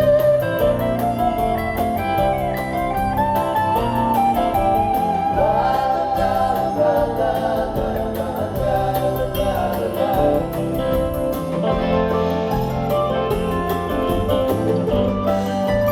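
Live country-folk band playing a song: guitars, bass and drums with a melody line on top and a steady beat.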